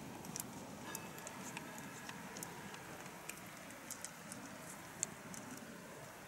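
Faint outdoor ambience with scattered light ticks and taps, one slightly sharper tick about five seconds in.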